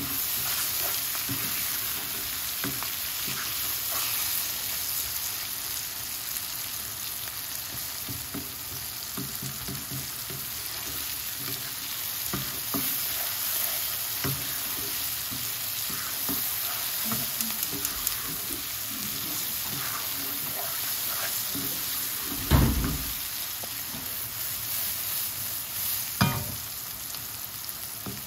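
Sliced onions and tomatoes sizzling in hot oil in a non-stick wok, stirred and scraped with a wooden spatula with small scattered clicks. Two louder knocks come near the end.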